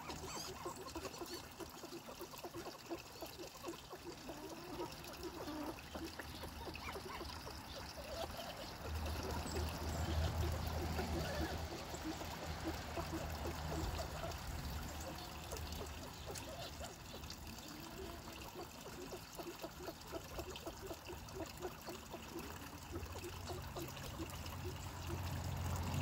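Water trickling steadily into a duck pond. A low rumble swells twice, about a third of the way in and again near the end.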